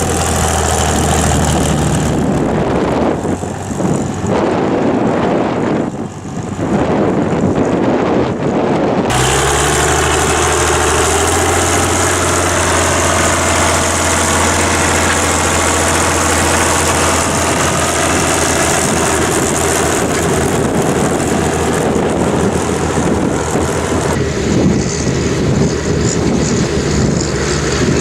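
Tractor diesel engine running steadily while ploughing, with wind buffeting the microphone. The sound changes abruptly about nine seconds in, then carries on as a steady engine hum.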